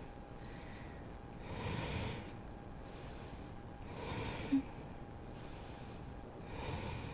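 A person breathing slowly and deeply, close to the microphone: three long breaths about two and a half seconds apart. There is a short click about four and a half seconds in, and a faint steady hum underneath.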